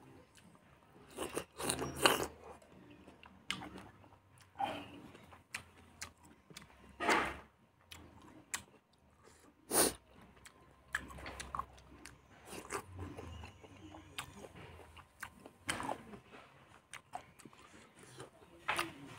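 A person eating fatty pork, boiled mustard leaves, rice and onion close to the microphone. Irregular bites and chewing, with several sharper crunches.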